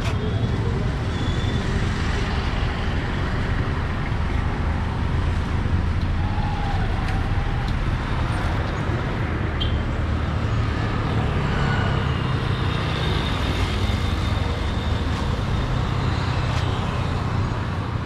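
Road traffic: auto-rickshaws, motorcycles and cars passing on the street, a steady low rumble of engines and tyres.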